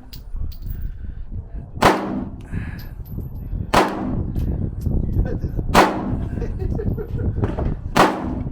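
Gunshots at a shooting range: four shots about two seconds apart, each a sharp crack with a short ringing tail, over a steady low rumble.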